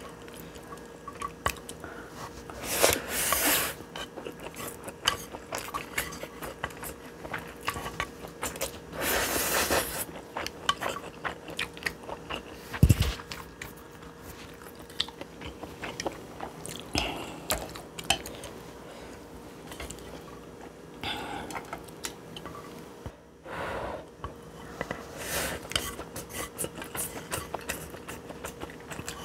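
A person eating spicy stir-fried instant noodles close to the microphone: wet chewing with many small mouth clicks and a few louder slurps, each about a second long. There is one low thump about halfway through.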